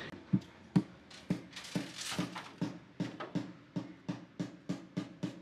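Background music: a drum beat that starts slow and steadily speeds up.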